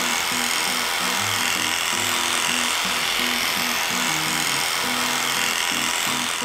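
Electric dog clippers running steadily as they shave through a matted coat, with background music throughout.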